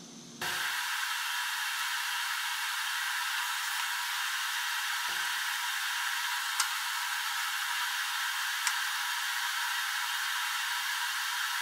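A steady, even hiss like a blower or fan, switching on abruptly about half a second in, with a couple of faint clicks.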